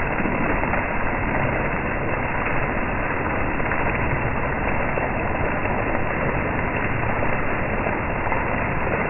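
Heavy rain falling steadily, an even, unbroken rush of rain on the street and the awning overhead.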